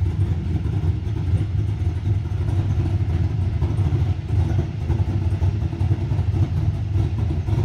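Engine running with a steady, deep rumble.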